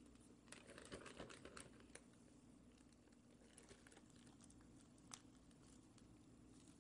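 Faint crinkling of a plastic zip-lock bag being handled. A quick run of crackles comes from about half a second to two seconds in, and a single click near five seconds, over a low steady hum.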